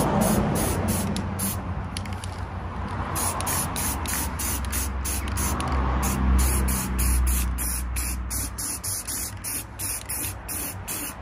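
Aerosol can of primer spraying onto an alloy wheel in rapid short bursts of hiss, about three a second.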